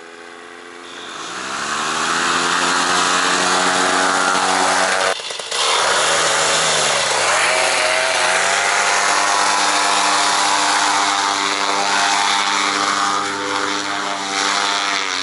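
Paramotor engine and propeller running hard for takeoff, with rushing propeller air. It revs up over the first two seconds, breaks off briefly about five seconds in, sags and climbs again a couple of seconds later, then holds a steady high pitch until it falls away at the very end.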